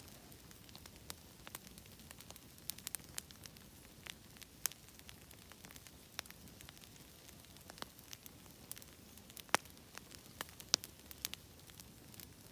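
Fire of branches and garden waste crackling: irregular sharp snaps and pops over a faint steady hiss, with a couple of louder snaps late on.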